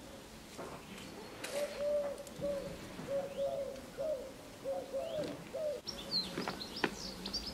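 A pigeon cooing: a run of about six low, hooting notes, the first one longest. Near the end come a few high chirps from a small bird and a couple of sharp clicks.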